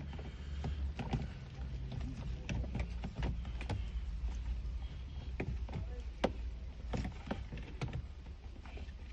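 Plastic clicks and snaps as a Toyota Fortuner door trim piece is pried off with a plastic trim tool, its retaining clips popping loose one after another, over a low steady hum.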